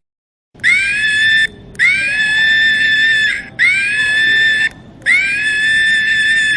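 Chimpanzee screaming: four long, high-pitched screams starting about half a second in. Each slides up at the start, then holds its pitch, with short breaks between them.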